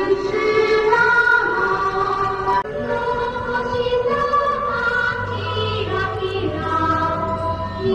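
Gion festival float music: held, wavering melody lines. A low steady drone joins about five seconds in.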